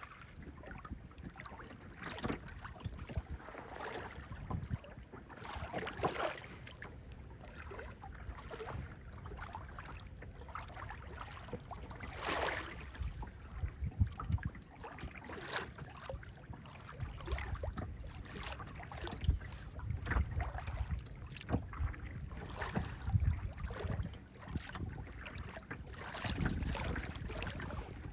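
A boat under way on a lake: water splashing and rushing against the hull in irregular bursts over a steady low rumble.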